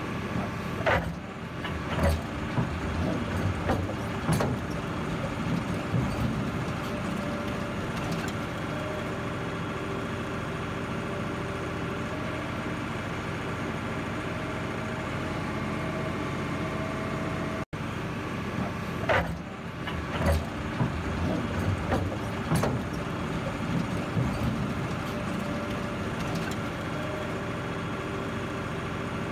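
Heavy dump truck running steadily under load, its engine hum broken by several sharp knocks and rattles.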